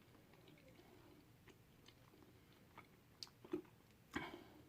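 Faint chewing of breaded tofu nuggets: soft mouth clicks and smacks, with a couple of louder smacks a little before the end.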